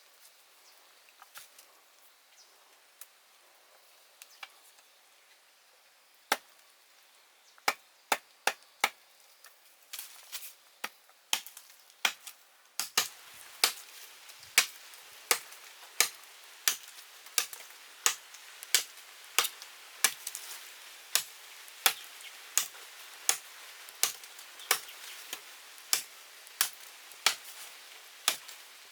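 Wood being chopped with a blade: a few scattered knocks at first, then irregular strikes, settling from about halfway into a steady rhythm of sharp chops, about three every two seconds.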